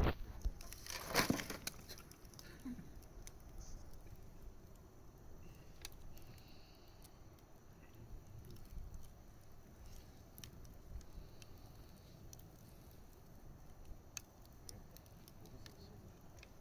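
Campfire burning with scattered crackles: a sharp pop right at the start, a louder burst of cracks about a second in, then faint, sparse crackling.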